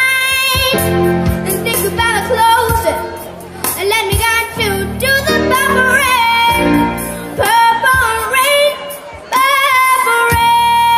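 Young female singer singing wordless, gliding vocal runs with keyboard accompaniment. A long held note near the end.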